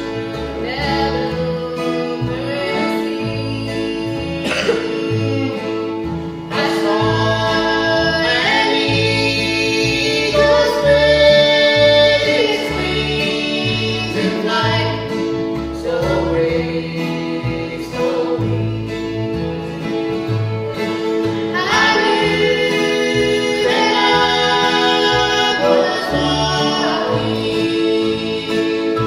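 Acoustic string band playing a gospel song live: fiddle, mandolin, acoustic guitar and upright bass, with a man and a woman singing together.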